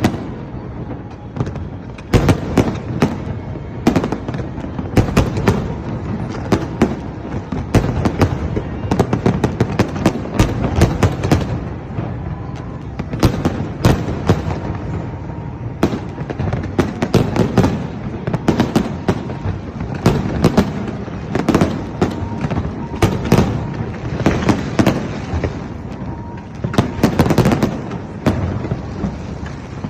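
Fireworks exploding in quick, irregular succession: dense bangs and crackles that run on without a real pause.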